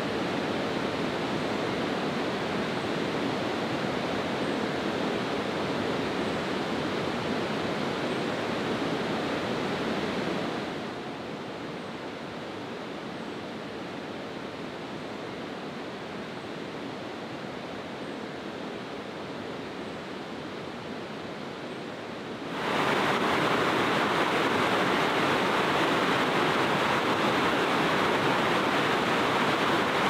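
Steady rush of flowing mountain-river water. It turns quieter about eleven seconds in, then suddenly gets louder again about two-thirds of the way through.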